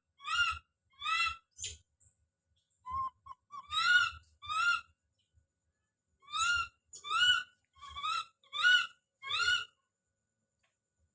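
Baby monkey screaming as it calls out: about ten short, high-pitched calls that each rise in pitch. They come in three bouts separated by pauses of a second or more.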